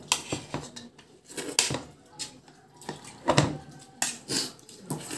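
Metal spoon and fork clinking and scraping against a plate, in a string of short, irregular strikes.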